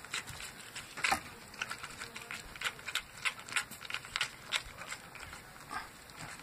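Mother dog licking a newborn puppy during whelping: irregular clicking licks and mouth smacks, a few a second.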